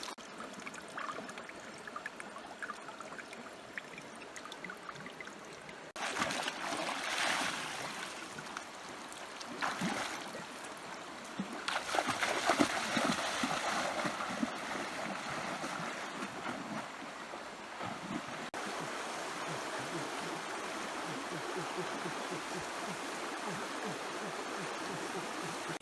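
Water running in a stream, with louder splashing in a few stretches through the middle.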